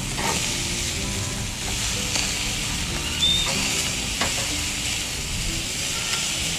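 Beef steaks sizzling steadily on a charcoal grill as they release their juices, with a few sharp crackles.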